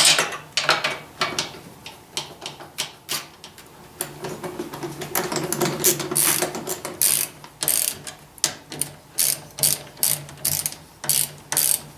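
Hand socket ratchet clicking in quick runs of short strokes as bolts on the quad's frame are worked with a 10 mm socket.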